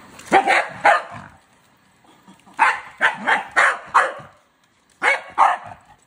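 Scottish terrier barking at a robot vacuum: about nine barks in three bursts, two, then five, then two.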